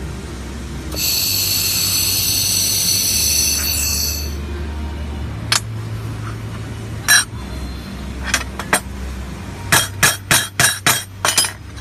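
Fiber laser welding machine working stainless steel: a steady hiss with high whistling tones lasting about three seconds as a weld runs, then a string of sharp metallic clinks, coming quicker near the end, over a low machine hum.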